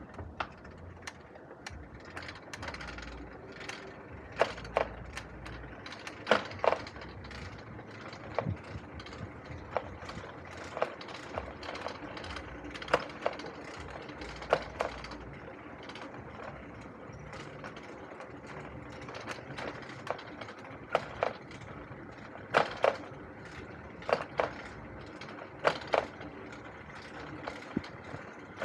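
E-bike rolling along a concrete path: a steady rolling noise with sharp clicks and knocks every second or two, often in quick pairs, as the bike rattles over the surface.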